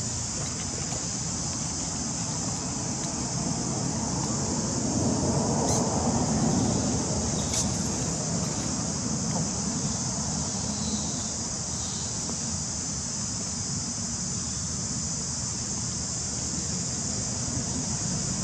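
Insects droning in a steady, high-pitched chorus over a low rumble that swells about five seconds in and then settles.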